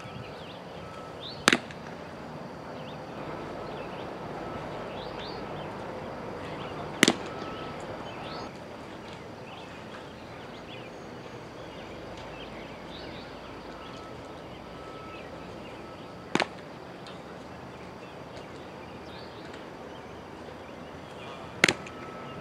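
Baseballs popping sharply into a catcher's mitt: four hard smacks, several seconds apart, one per pitch.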